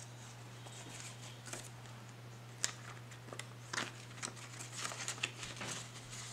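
Paper tracker cards and cash envelopes being handled in a binder: soft rustling and sliding with scattered sharp clicks. One sharp click comes about two and a half seconds in, followed by a busier run of clicks and rustles.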